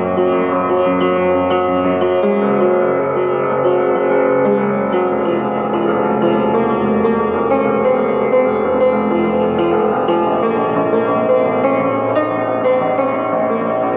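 Upright piano being played, an unbroken stream of notes and held chords at an even loudness.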